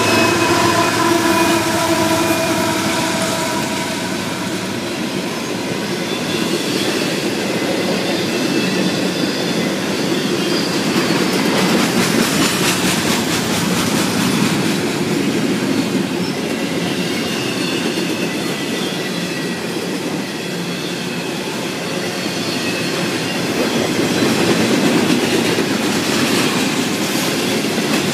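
Freight train of double-stack container cars rolling past close by, with the steady rumble and clickety-clack of steel wheels on rail and thin high wheel squeals. At the start, the engine tones of the passing CSX Dash 9 diesel locomotive fade away within a few seconds.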